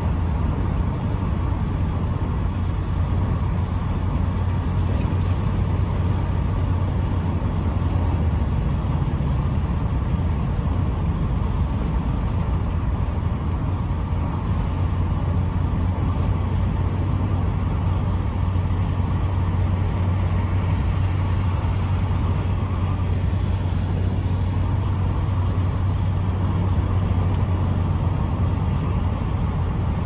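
Steady low rumble of a running motor vehicle, unchanging throughout.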